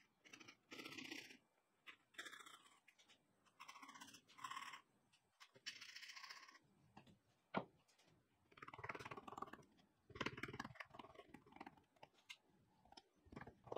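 Small handsaw cutting a notch into the end of a small wooden tray: a run of short, scratchy back-and-forth strokes, one sharp knock about seven and a half seconds in, then longer rasping cuts near the end.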